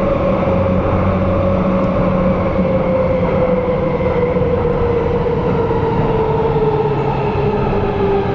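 Metro train running through a tunnel. Dense rolling rail noise starts suddenly over a low hum, with a whine that slowly drops in pitch.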